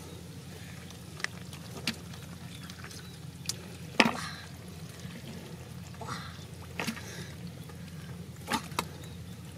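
Water splashing and dripping in short separate bursts, the loudest about four seconds in, over a steady low hum.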